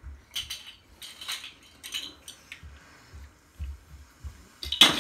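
Small plastic toys clattering and knocking against each other and the floor in irregular clicks, with soft thumps of a small child's footsteps and one louder clack just before the end.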